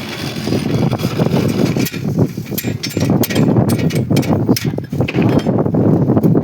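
Rebar stirrups being handled and fitted: many irregular sharp clicks and knocks over a steady rumble.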